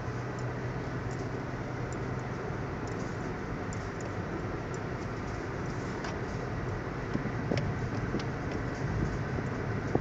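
Road and engine noise heard inside a moving car: a steady rush of tyres and engine, with a few faint clicks in the second half.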